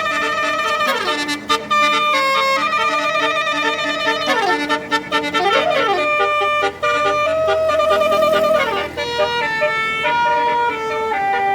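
Tour bus's basuri musical horn playing a melody in held, stepped notes, with quick rising and falling siren-like glides about four to six seconds in.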